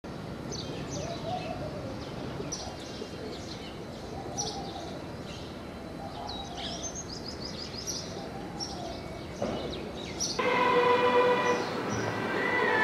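Many small birds chirping over a steady rumble of distant town traffic. About ten seconds in it cuts abruptly to louder music with long held notes.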